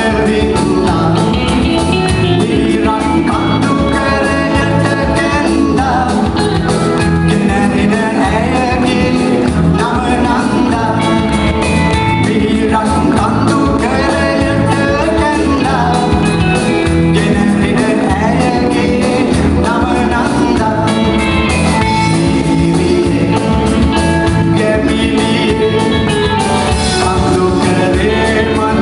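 A man singing a Sri Lankan pop song live into a microphone, backed by a band with electric guitar and drums.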